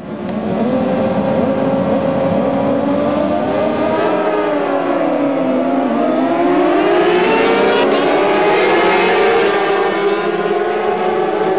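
A pack of 750 Superstock road-racing motorcycles at full throttle, many engines revving together in a high-pitched wail. The pitch of the pack dips about five seconds in, then climbs again as they pull away.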